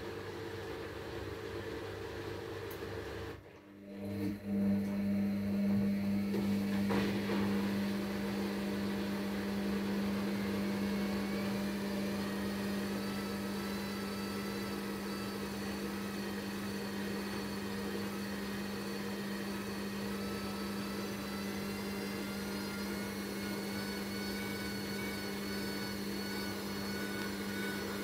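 Hisense front-loading washing machine running. The drum stops briefly about four seconds in, then starts up again into a steady, louder motor hum with a faint, slowly rising whine, as in the spin phase of the cycle.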